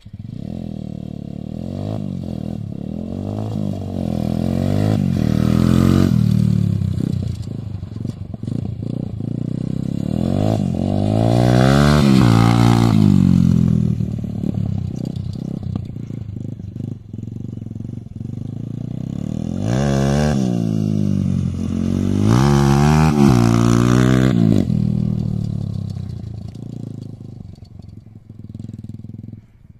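Single-cylinder four-stroke engine of a modified TVS Apache RTR 160 dirt bike with an aftermarket silencer, revving up and down through the gears as it is ridden. It is loudest as it passes close, about a third of the way in and again about three quarters of the way in, then fades away into the distance near the end.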